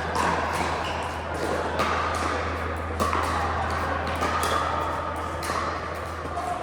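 Pickleball paddles hitting hard plastic balls and balls bouncing on the court: irregular sharp pops, several a second at times, over a steady low hum.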